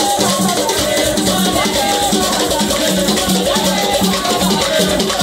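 A group singing together, accompanied by a rattle shaken in a steady rhythm.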